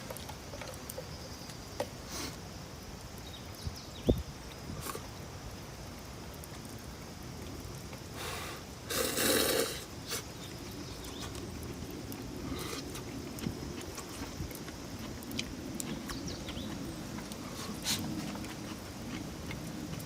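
Eating and handling tableware: scattered light clicks and taps, with a short noisy burst about nine seconds in, then a faint low steady hum.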